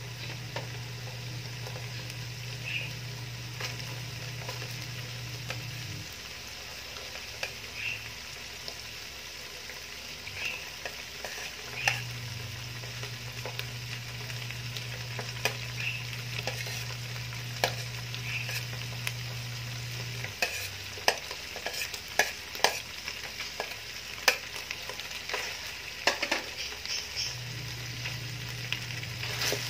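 Pork sizzling in its own fat in an aluminium stockpot as the cooking liquid runs dry, with chopped garlic and onion added and stirred in. A spoon clicks and scrapes against the pot, more often in the second half. A low hum cuts in and out several times.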